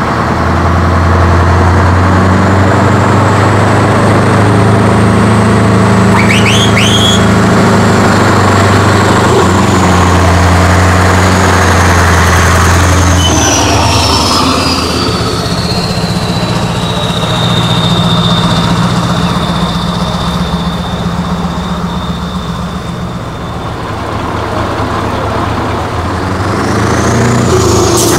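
Scania 143M 450's V8 diesel engine running loud as the truck moves off slowly and passes close by, a deep steady engine note that eases a little about halfway through. A faint high whine falls slowly in pitch through the middle, and there are a couple of brief squeaks about six seconds in.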